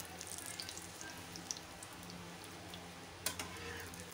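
Shallow frying oil crackling and popping in a pan while breaded bread rolls are lifted out with a steel spatula. A sharp knock about three seconds in.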